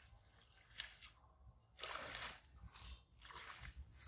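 Water hyacinth leaves and pond water being pushed about by a long bamboo stick: faint rustling, squishing and sloshing in three short swishes, the middle one the longest.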